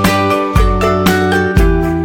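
Upbeat background music with plucked pitched notes and a deep bass note on a steady beat, about two beats a second.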